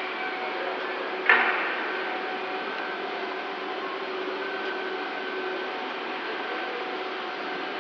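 Steady machinery drone inside a steel ship's cargo hold, with one sharp clank about a second in from the crane-hung lifting beam and its chains over the stacked steel rails.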